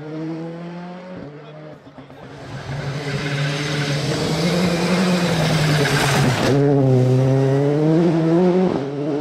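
Citroën C3 R5 rally car's turbocharged four-cylinder engine under hard acceleration, its pitch climbing and dropping with each gear change. In the middle a loud rush of tyre and gravel noise covers it as the car slides past, and this cuts off suddenly about six and a half seconds in.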